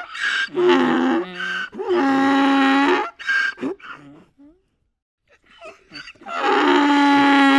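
Donkey braying: a run of wheezing hee-haws alternating short and long pulls, a pause of about two seconds in the middle, then another long bray near the end.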